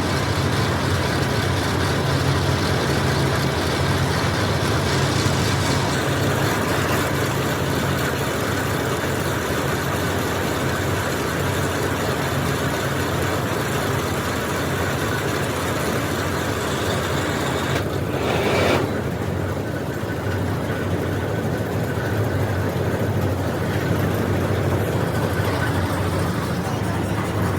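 Borewell drilling machine running steadily with a low engine drone. There is a short louder surge about two-thirds of the way through.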